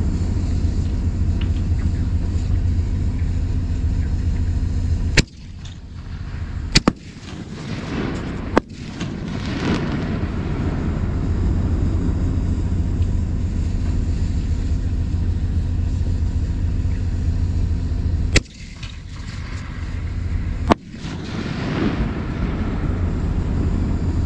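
Fireworks shells bursting: five sharp reports, three in the first half and two near the end, over a steady low rumble, some followed by a brief crackle.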